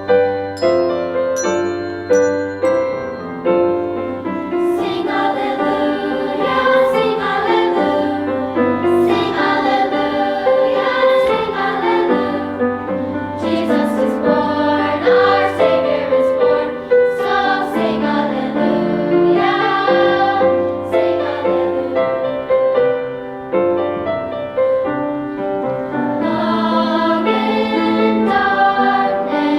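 Piano playing alone, then a choir comes in about four seconds in and sings with the piano accompanying.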